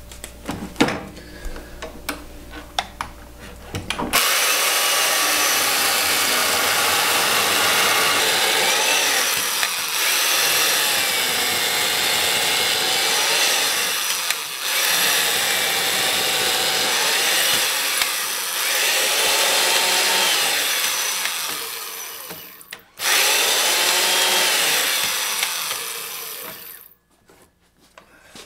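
Electric chain mortising machine starting about four seconds in and cutting a mortise into a timber beam for some twenty seconds. Its pitch sags and recovers as the chain is plunged into the wood, with a few brief dips, and it stops near the end. Before it starts, a few clicks and knocks come from the machine being adjusted on the beam.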